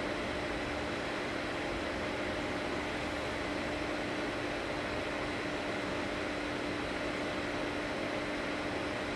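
Steady machine hum with hiss, a few fixed tones running through it and no change in level.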